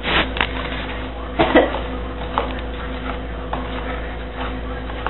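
Wooden spoon scraping and knocking against a mixing bowl as thick gingerbread dough is worked out of it, a few short knocks and scrapes over a steady electrical hum.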